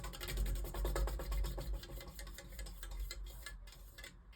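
2003 Walmart Impressions 42-inch ceiling fan running on high, with a fast, steady ticking over a low rumble of moving air, getting gradually quieter toward the end.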